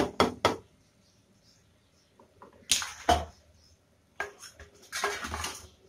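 A long-handled spoon knocking and scraping against the inside of a pressure cooker while stirring a thick vegetable masala: three quick knocks at the start, a short scrape about three seconds in, and a longer run of scraping near the end.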